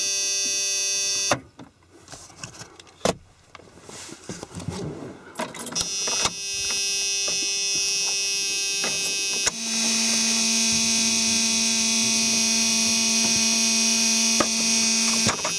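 A steady electrical buzz with many overtones. It cuts out about a second in, leaving a few scattered clicks and knocks, then returns about six seconds in and picks up a lower steady tone near the ten-second mark.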